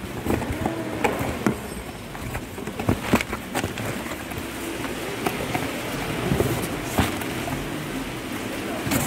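Cardboard box flaps and plastic wrapping being handled and pulled open, with scattered sharp clicks and crinkles over a steady background noise.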